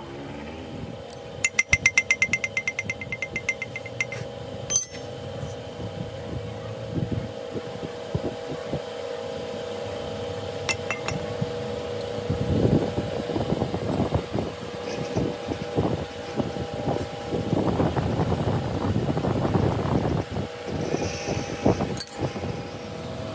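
Workshop machinery running with a steady hum. About a second and a half in comes a quick run of sharp metallic ticks with a ringing tone, and in the second half two longer stretches of rough rattling noise.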